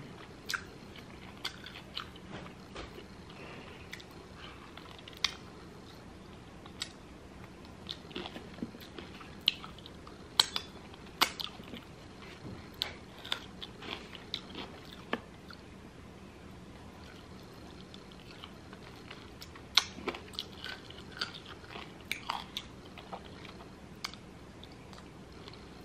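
Close-up chewing and biting of air-fried lemon pepper chicken wings: irregular wet mouth clicks and crunches as the meat is pulled from the bone and eaten, with a quieter stretch in the middle.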